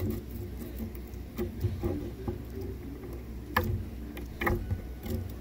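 Slime being squeezed and kneaded by hand, giving irregular small clicks and pops over a low rumble of handling noise.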